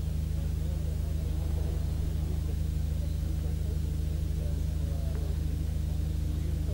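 A steady low hum with faint, indistinct voices behind it.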